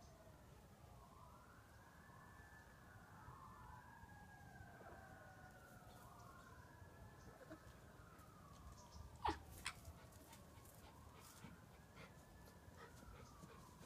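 Faint, distant emergency-vehicle siren wailing, its pitch slowly rising and falling in overlapping wails. A couple of short sharp clicks about nine seconds in are the loudest sounds.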